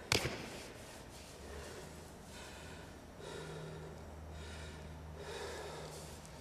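A man breathing heavily, out of breath: a sudden sharp sound just after the start, then a few slow, noisy breaths.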